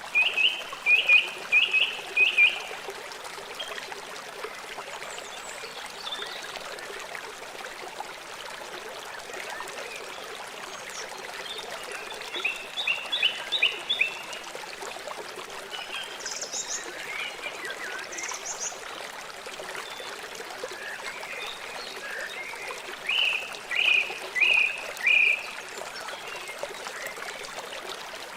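River water flowing steadily. Over it, an animal gives three bursts of rapid short calls, near the start, in the middle and near the end, with a few higher short notes in between.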